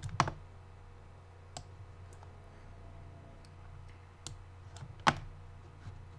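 A handful of sharp, scattered computer mouse clicks, the loudest about five seconds in, over a steady low hum.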